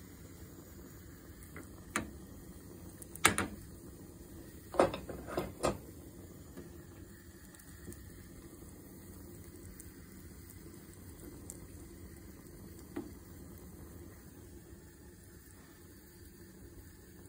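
Butter sizzling faintly and steadily in a small nonstick frying pan, with a few sharp utensil knocks in the first six seconds and one more later.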